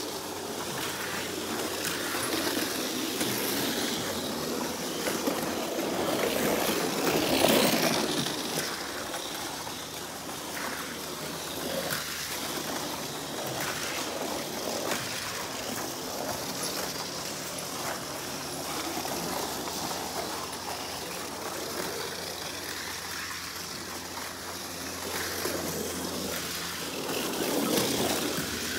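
Tamiya Mini 4WD cars running on a homemade plastic-board track, a continuous rolling clatter that swells loudest about seven seconds in and again near the end.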